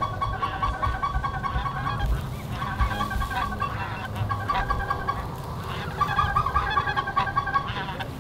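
A flock of snow geese calling: a steady din of many overlapping honks, with wind rumble on the microphone.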